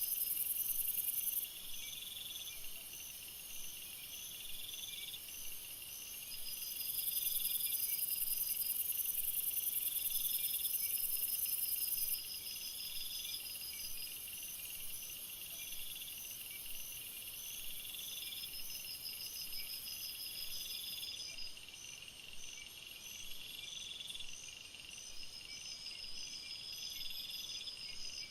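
A chorus of night insects such as crickets calling together: a short trill that repeats every two to three seconds, steady pulsed chirping above it, and a very high, shrill buzz. The buzz is the loudest sound; it is loud at the start and again from about seven to twelve seconds in, and drops away about three-quarters of the way through.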